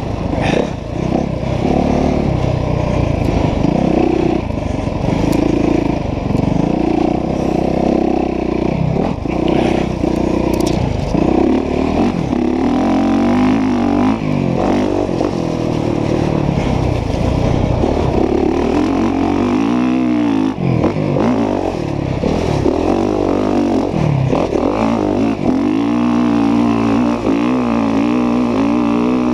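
Motocross dirt bike engine under hard riding, revving up and falling back again and again as the throttle opens and closes.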